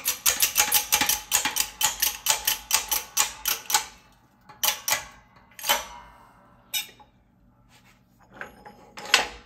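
Hydraulic shop press being pumped to push a new oil seal into a differential bearing housing: rapid metallic clicking, about five a second, for nearly four seconds. This is followed by a few single clicks and one sharper click near the end.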